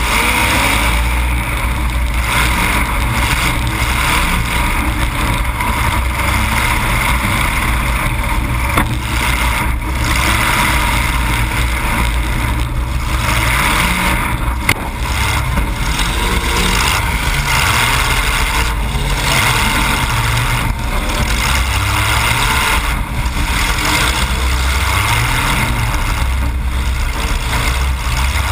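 Demolition derby car's engine running loud close up, revving up and down as the car maneuvers, with a couple of short sharp knocks about nine and fifteen seconds in.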